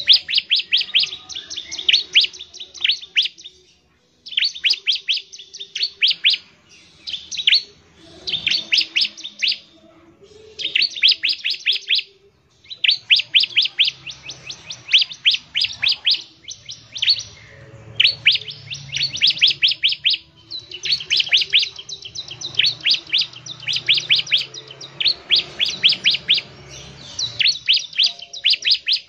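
Bar-winged prinia (ciblek) singing: rapid runs of sharp, high-pitched notes in bursts of one to three seconds with brief pauses between them.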